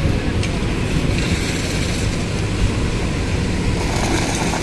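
Engine of the concrete-pour machinery (mixer and bucket lift) running steadily with a low drone.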